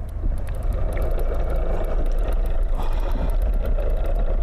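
A fishing boat's motor running steadily: a low rumble with a steady hum above it.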